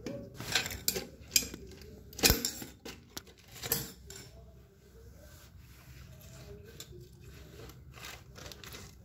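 Tools and fittings being handled during plumbing work: a handful of sharp clicks and short scrapes in the first four seconds, the loudest a little past two seconds in, then only low background noise.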